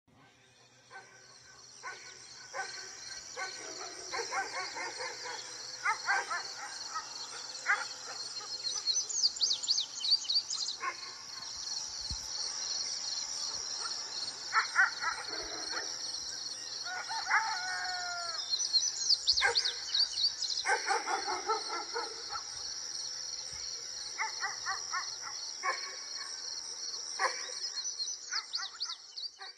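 Outdoor ambience of birds chirping and calling over a steady high-pitched buzz, with short calls scattered throughout.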